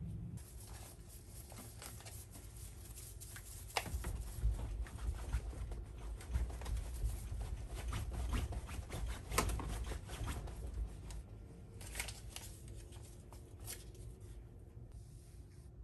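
Paper powder packet rustling and crinkling as it is handled and shaken, with irregular sharp taps and low knocks against a wooden table.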